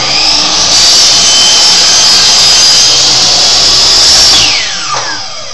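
A power tool's motor starts abruptly, runs at a steady speed for about four and a half seconds, then is switched off and spins down with a falling whine.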